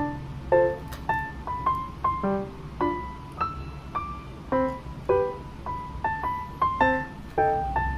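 Background music: a light melody of single piano notes, about two a second.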